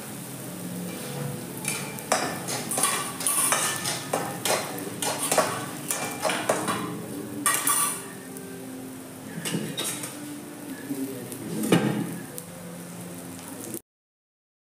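Metal spatula clanking and scraping in steel cooking pans as food is stirred and served, over a frying sizzle from the pan on the gas flame. The sound stops abruptly near the end.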